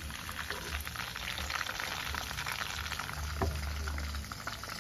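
Chicken pieces frying in hot oil: a steady sizzle with many small crackles, and a single knock about three and a half seconds in.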